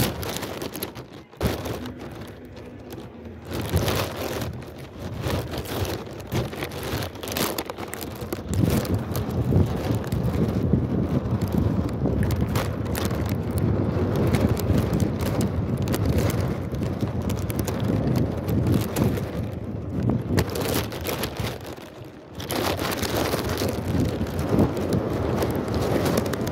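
Wind buffeting the microphone of a phone carried aloft on a kite: a rough, crackling rush that swells and drops in gusts, easing briefly about a second in and again near the end.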